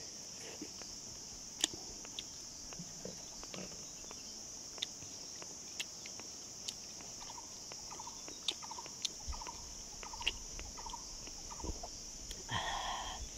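A steady high-pitched insect chorus, with scattered light clicks and taps over it. In the second half a run of short chirps comes about every half second, and near the end there is a brief louder pitched sound.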